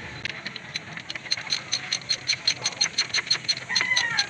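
Ratchet wrench clicking in a quick, even series of about five clicks a second, starting about a second in, as the bolts of a new water pump are run in.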